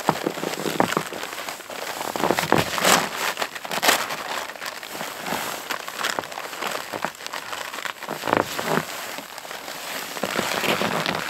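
Velcro strips on a heavy canvas tent door being pressed and pulled while the fabric rustles: irregular crackling and short ripping noises, the strongest bunched a few seconds in.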